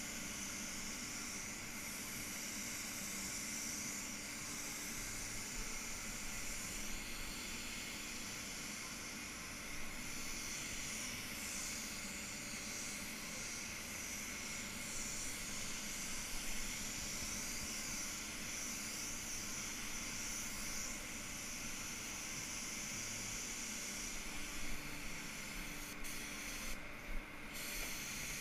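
Compressed air hissing from a gravity-feed paint spray gun as paint is sprayed onto a car panel in steady passes; the hiss stops briefly about 26 seconds in as the trigger is let off. A faint steady low hum runs underneath.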